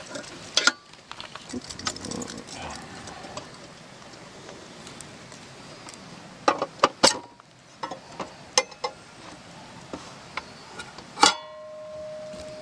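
Clicks and knocks from hands working on a solar-powered electric fence energizer's metal box. Near the end comes a louder metallic clang that keeps ringing as the box's metal cover swings open.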